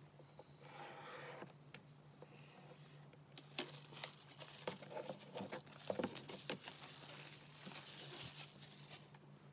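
Clear plastic shrink-wrap being pulled off a cardboard iPad box and crumpled by hand: dense crinkling and crackling from about three seconds in. Before that, softer rubbing of a hand on the box.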